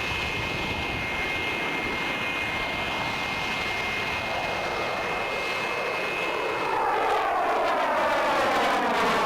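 F-4 Phantom II fighter's jet engines with a steady high whine over a rushing sound. It grows louder for the last couple of seconds, with a sweeping, falling pitch as the jet passes close.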